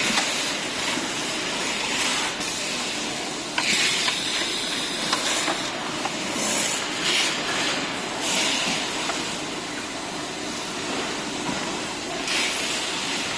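Factory assembly-line noise: a steady din with short bursts of hissing several times and a few light clicks.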